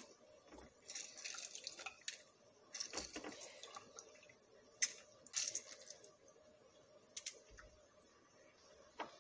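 Lemon halves squeezed by hand over a glass jar, the juice spurting and dripping into it in several short spurts, with a few sharp clicks against the glass.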